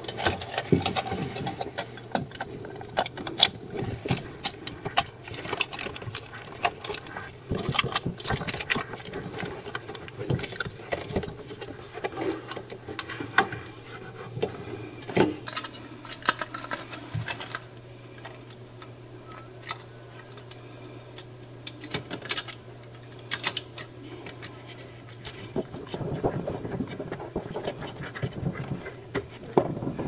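Aluminium foil tape crinkling, crackling and tapping as it is handled and pressed onto the plastic inner wall of a refrigerator, many short irregular clicks. Underneath is a steady low hum that stops about four seconds before the end.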